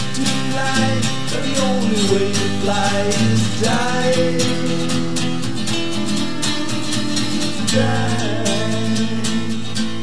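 Acoustic guitar strummed steadily in a folk song. Over it a wordless voice slides up and down in pitch during the first few seconds and again near the end.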